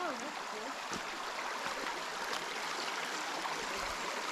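Shallow rocky creek running steadily over stones and rock ledges, a continuous rushing of water through small riffles.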